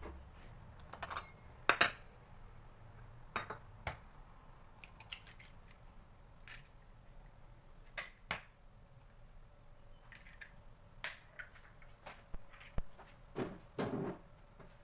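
Eggs being tapped and cracked open over a bowl: a scattering of sharp taps and clicks of shell, with a short burst of crackling near the end.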